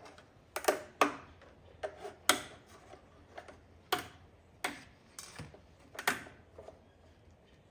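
Sharp knocks and clacks of hard objects, about seven at irregular intervals over roughly six seconds.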